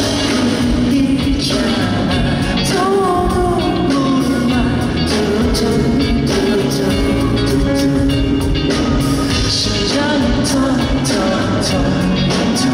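A song performed live: a singer's voice carrying the melody over a full band with a steady drum beat.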